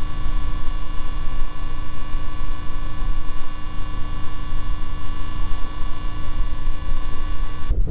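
A steady hum with many evenly spaced overtones over a loud low rumble. It cuts off abruptly near the end.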